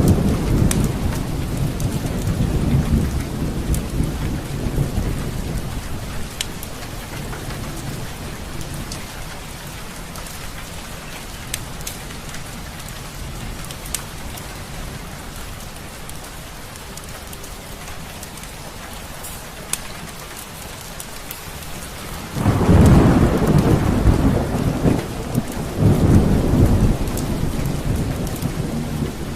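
Steady rain with rolling thunder: a rumble dies away over the first few seconds, and a new loud peal breaks in suddenly near the end and swells again.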